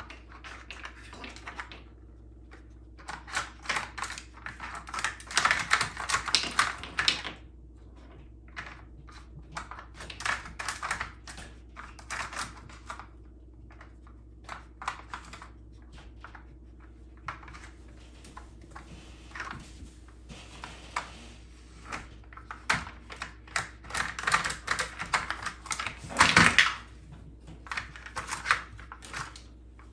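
Puppy nosing and pawing at a plastic Dog Brick puzzle feeder on a tile floor to get at kibble. The hard plastic sliders and lids click and clatter in irregular bursts, busiest about five seconds in and again near the end, loudest about 26 seconds in.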